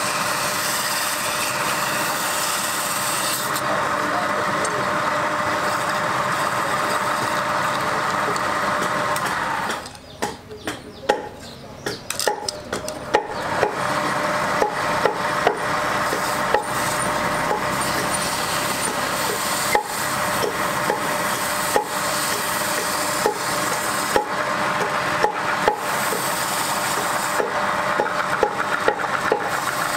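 Wooden goblet spinning on a wood lathe with a turning tool and then a wad of fibre held against the wood: a steady scraping rub. About ten seconds in it drops away briefly amid a scatter of ticks, then resumes with occasional ticks.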